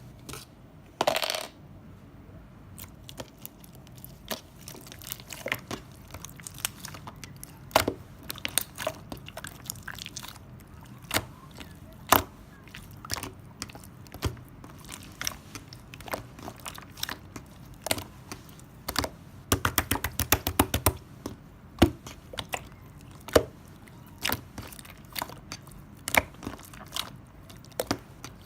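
White Elmer's-glue slime being squished and poked by hand, making scattered sharp clicks and pops, with a quick dense run of clicks about two-thirds of the way through.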